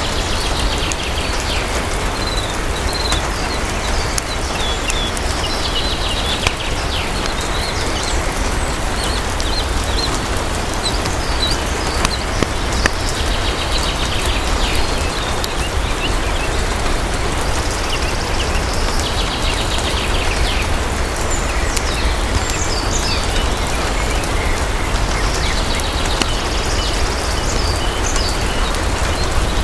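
Steady rain falling, with a few faint crackling clicks from a fireplace. Clusters of short, high chirps recur every several seconds over the rain.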